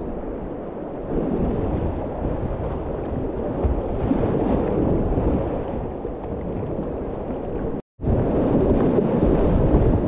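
River rapids rushing and churning around a kayak, with wind buffeting the microphone. The sound cuts out for an instant about eight seconds in, then comes back a little louder.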